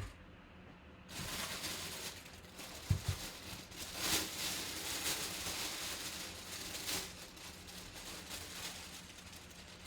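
Rustling and handling of packaging while a boxed football helmet is unpacked, with a couple of dull thumps about three seconds in.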